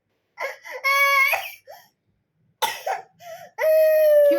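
Young child crying in sobbing bursts: a couple of short high-pitched wails, a gasping sob, then a long drawn-out wail near the end.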